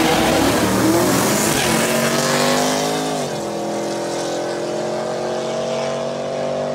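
Two drag cars, a Fox-body Mustang V8 and a red car, launching off the line and accelerating down the strip. The engine note rises, drops at a gear change about three seconds in, then climbs again as the cars pull away and grow quieter.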